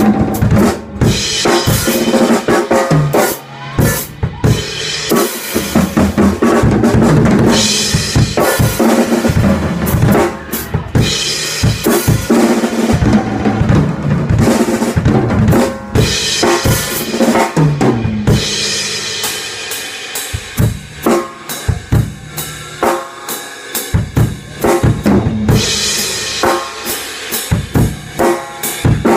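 Acoustic drum kit being played: a busy groove of kick, snare and tom hits with several crash-cymbal swells. The playing thins out into lighter, sparser strokes in the second half.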